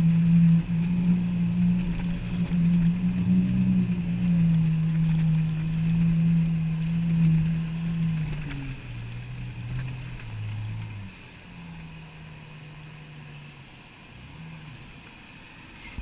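A four-wheel drive's engine is heard from inside the cab, pulling steadily under load as the vehicle fords deep floodwater, with water washing over a tarp on the bonnet. The engine note drops in pitch partway through, then falls quieter about eleven seconds in as the throttle eases.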